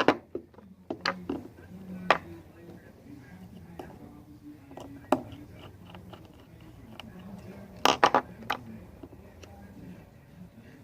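A series of sharp, separate clicks and taps from small hard objects being handled, with a quick cluster of about four near the end. Faint background talk runs underneath.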